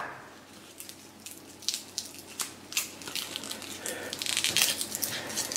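Garlic cloves, skins on, being crushed in a garlic press: a run of sharp little clicks and crunches, then a denser stretch of crunching about four seconds in.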